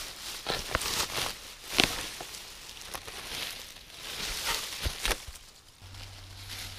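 Footsteps and rustling through vegetation, with scattered sharp clicks and knocks, as a person moves on between finds. A low steady hum comes in near the end.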